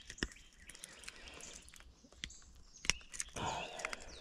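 Birds chirping faintly, broken by two sharp clicks, one about a quarter second in and one just under three seconds in, and a short rustling noise right after the second.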